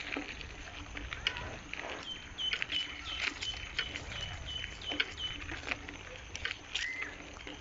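Small birds chirping, with a quick run of short high chirps through the middle and one longer call near the end, over light crunching steps on a gravel path.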